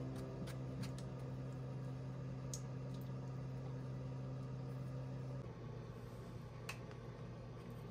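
Quiet background music: a held low note that changes about five seconds in, with a few faint clicks.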